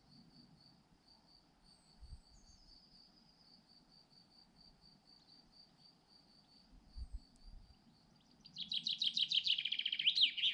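A steady, evenly pulsing high chirp of an insect, typical of a cricket, runs throughout. Near the end a songbird breaks in with a loud, quick burst of rapid notes lasting about two seconds.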